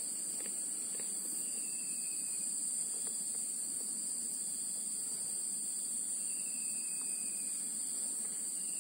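A steady, high-pitched drone of insects, unbroken throughout. Two faint falling whistles sound about five seconds apart.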